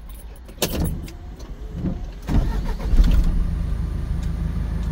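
A truck's engine is started a little over two seconds in and settles into a steady idle, heard from inside the cab. A brief knock comes shortly before, under a second in.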